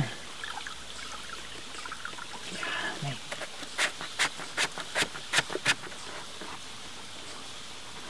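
Plastic shower drain's threaded locking ring being unscrewed by hand, giving a quick run of about seven sharp clicks a few seconds in, over the steady trickle of flowing creek water.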